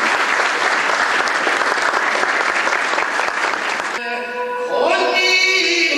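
Audience applauding steadily. About four seconds in, the applause cuts off and music with chanting begins.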